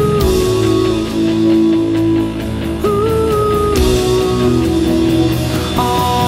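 Background music with a held melody line that steps up and down over a steady, full accompaniment.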